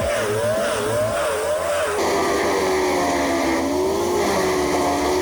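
Wood chipper engine running hard, its pitch rising and falling about twice a second. About two seconds in there is an abrupt switch to another running machine with a lower, steadier note that dips briefly.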